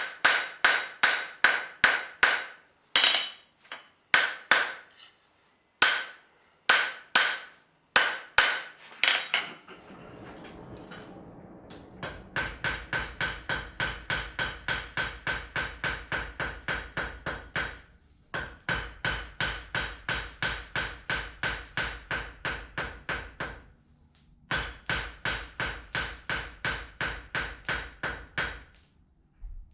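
Hammer forging hot steel on an anvil, drawing out the point of a nail-in hook. Irregular ringing blows with a high anvil ring come first, then after a short lull steady runs of about three blows a second, broken by brief pauses.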